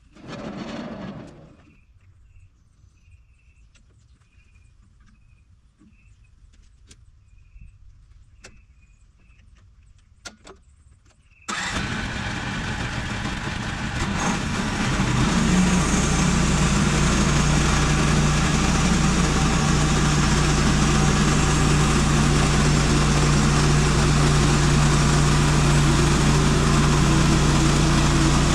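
An engine starts abruptly a little over a third of the way in, picks up speed a few seconds later, then runs at a steady speed. Before it, only faint clicks and chirps are heard over near quiet.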